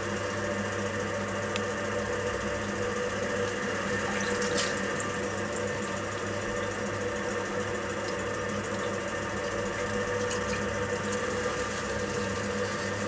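Potter's wheel spinning with a steady hum, with the wet swishing of water-lubricated clay under the potter's hands as he pulls up the walls of a pot.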